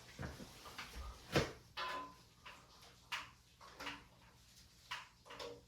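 A series of short clicks and light knocks, some with a brief metallic ring, from tools and metal parts being handled while the water heater's elements and thermostats are tested.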